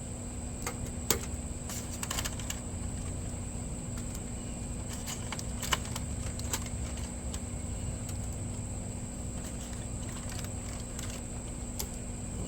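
Metal grill tongs clicking and tapping on the grate of a charcoal grill as chicken pieces are laid on: scattered sharp clicks over a steady low rumble.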